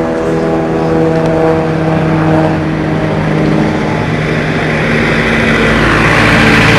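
Car engine running steadily, with a broad rushing road noise building over the last couple of seconds.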